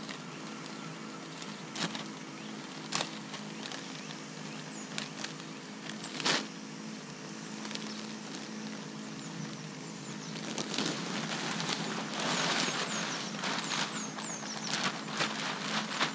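Plastic compost bag being handled and compost tipped out of it onto dug soil: a few sharp crackles early on, then denser rustling and pouring noise over the last five seconds or so. A faint steady low hum and short high chirps sit underneath.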